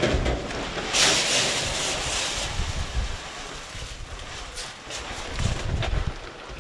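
Dry chicken feed pouring from a 50-pound paper feed bag into a galvanized metal trash can. A loud hissing rush of grain starts about a second in and eases after a second and a half into a lighter steady pour.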